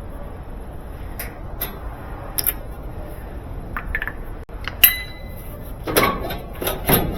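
Scattered clicks and clatter of metal parts and tools being handled while a GE washer is taken apart. There is a brief metallic ring about five seconds in and a louder clatter near the end.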